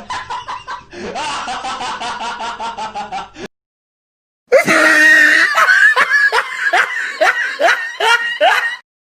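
Two laughing sound effects back to back. A rapid, evenly pulsed snickering laugh cuts off about three and a half seconds in. After a second's pause comes a louder laugh of repeated falling 'ha' notes.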